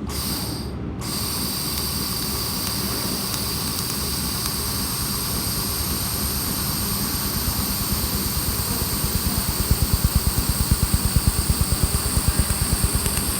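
Handheld laser welding machine running: a steady machine hum with high whining tones. From about eight seconds in, a rhythmic pulsing of about four beats a second builds up.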